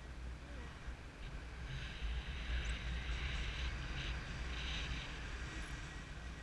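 Wind rushing over a GoPro microphone in flight under a paraglider: a steady low rumble, with a hiss that swells from about two seconds in and eases off near the end.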